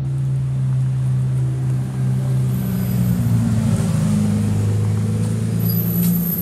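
Lamborghini Diablo VT's V12 engine running at low revs as the car drives slowly past, a steady deep note that shifts in pitch about three seconds in.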